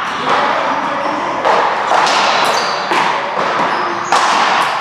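Ball game in an indoor court: a ball struck sharply several times, about once a second, each hit echoing off the walls, with shoes squeaking on the floor between hits.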